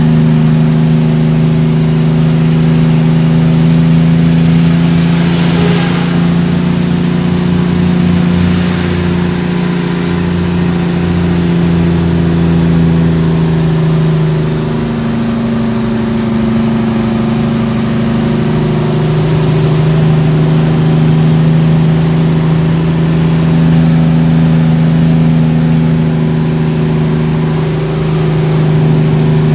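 Cummins ISX15 diesel of a Kenworth T800 tractor-trailer hauling about 34 tonnes, running steadily under load. The engine note dips and shifts briefly about halfway through and again near the end.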